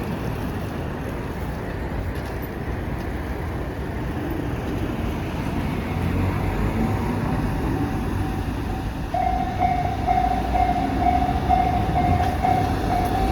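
Low rumble of an approaching diesel locomotive growing louder over traffic and wind noise. About nine seconds in, a level-crossing warning bell starts ringing with a steady repeating tone.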